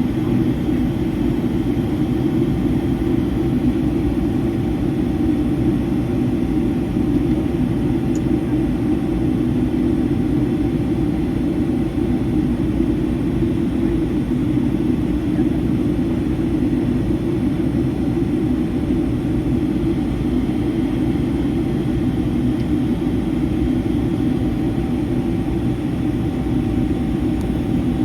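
Steady cabin noise inside a Boeing 757-300: the Rolls-Royce RB211 engines' low, even drone mixed with rushing airflow, with a faint steady whine above it.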